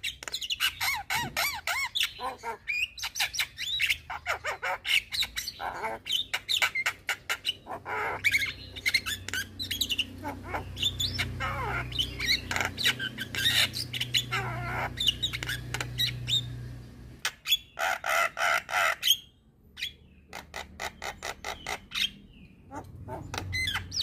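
Javan myna (jalak kebo) singing a long, varied chattering song of rapid clicks, squawks and whistled notes, with a brief lull about three-quarters of the way through.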